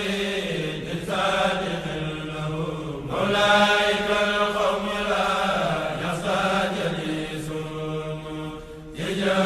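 Voices chanting a religious song in long, held phrases, with brief breaks about three seconds in and near the end.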